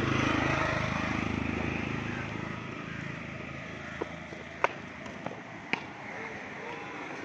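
A motor vehicle passing along the street, its engine sound fading away over the first two seconds or so. Then a few sharp, short knocks about four to six seconds in, the loudest two about a second apart.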